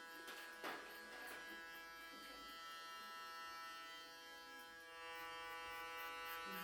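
Electric hair clippers running with a steady buzz, with a short burst of noise under a second in.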